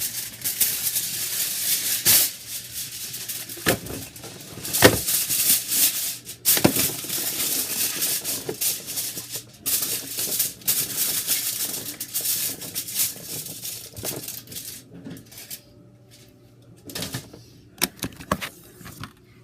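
Aluminium foil being pulled from the roll, torn and crinkled as it is pressed onto a baking sheet: a dense crackle with sharp snaps. It dies down about fifteen seconds in, leaving a few scattered clicks.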